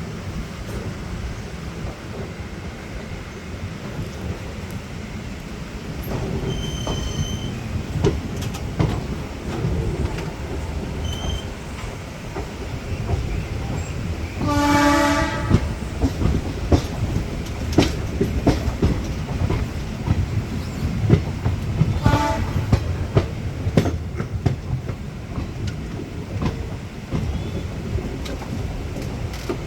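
Diesel-electric multiple unit (DEMU) train running, with a steady rumble and wheels clicking over rail joints. Its horn sounds once, briefly, about halfway through.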